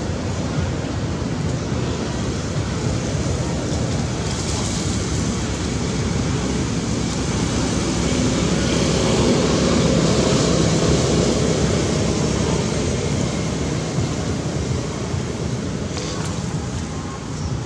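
Steady rushing outdoor background noise that swells a little in the middle and eases off, with a few faint clicks near the end.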